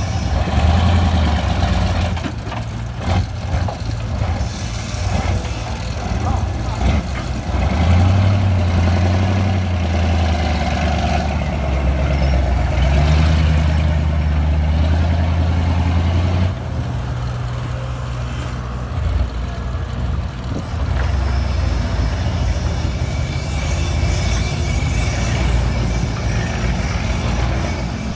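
Heavy dump truck's diesel engine running hard under load as the stuck truck tries to drive out of soft mud, a deep rumble that grows louder for several seconds and then drops off suddenly about two-thirds of the way through.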